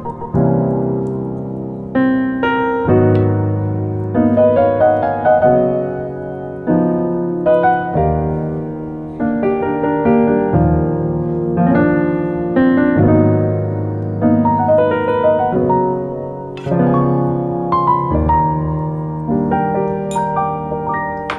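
Background piano music: a slow solo piano piece, with new notes and chords struck about once a second and left to ring.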